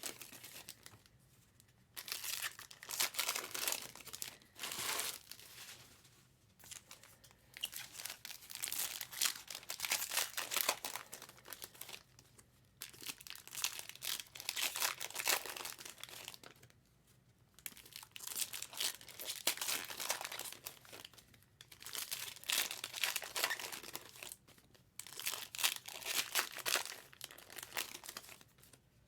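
Trading card pack wrappers being torn open and crinkled by hand, in repeated bursts of a few seconds with short pauses between.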